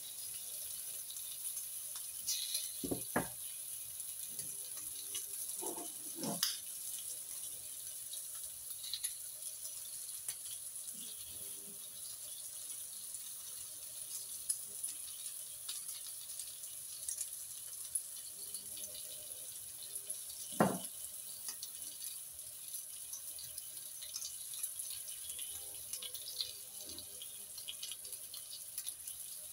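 Bacon sizzling steadily in a frying pan, with a few sharp knocks and clatters, the loudest about three, six and twenty-one seconds in.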